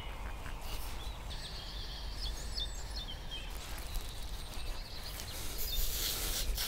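Small birds chirping over a steady low outdoor rumble, with a rough scraping near the end as a knife blade scores the bark of a freshly felled tree.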